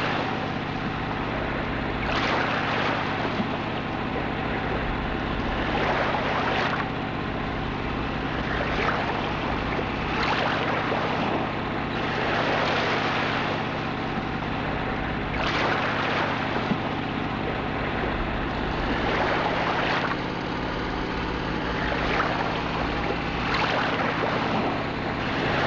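Dive boat's engine running steadily underway, with rushing water and wind swelling every couple of seconds as the hull moves through the chop.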